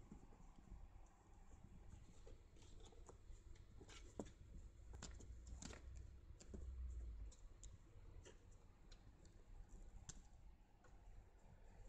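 Near silence broken by faint scattered clicks and crinkly rustles of close handling, most of them in the middle of the stretch.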